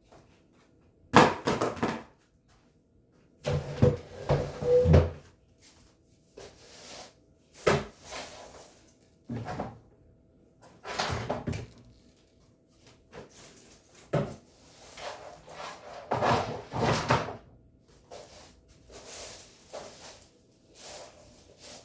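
Irregular knocks, bumps and short scrapes of household things being handled and moved during room cleaning, with a cluster of heavier thuds about four seconds in.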